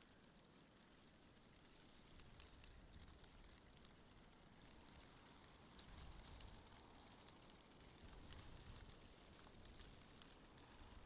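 Faint, steady wind ambience with a low rumble that swells a little now and then, and scattered soft ticks and crackles over it.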